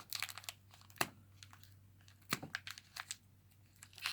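Scattered light crinkles and clicks of a foil booster pack wrapper being handled, a few sharp ticks about a second apart.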